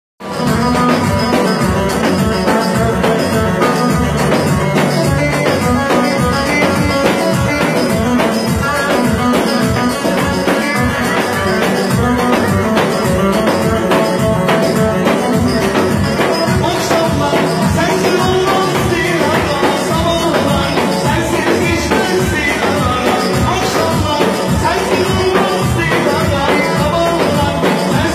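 Live Turkish folk dance tune (a Devrek oyun havası) played on clarinet and electronic keyboard with a steady drum beat, amplified through PA speakers.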